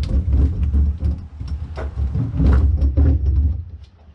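Hands rubbing and pressing foil-faced sound-deadening sheet onto a VW Super Beetle's steel floor pan, working it down into the pan's ribs: a deep uneven rumbling from the pressed panel with scattered scrapes and clicks.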